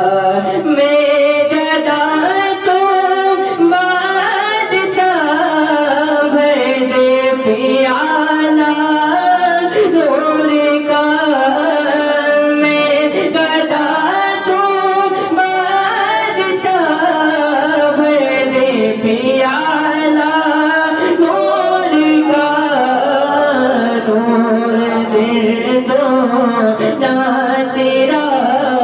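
A young man's solo voice singing a naat, a devotional song in praise of the Prophet, into a handheld microphone: long sustained phrases whose pitch slides and ornaments between notes.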